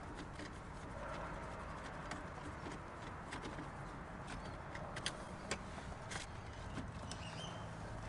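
Faint, irregular clicks and ticks of a hand screwdriver with a T20 Torx bit backing screws out of a steering-column turn-signal switch, over a steady low background hum.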